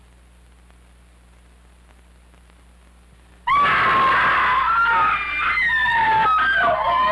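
A woman screaming, loud and sudden, starting about halfway through after a few seconds of faint steady hum. The scream wavers up and down in pitch.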